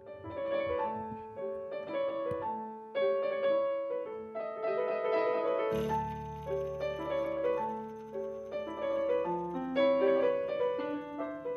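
Piano music: a quick, repeating pattern of notes, joined about six seconds in by a low sustained bass note.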